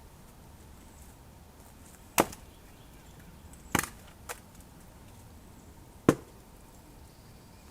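Sharp knocks, three loud ones about two seconds apart and a lighter one just after the second.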